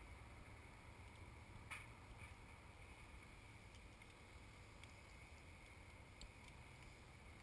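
Near silence: a faint steady background hum, with one soft tick about two seconds in.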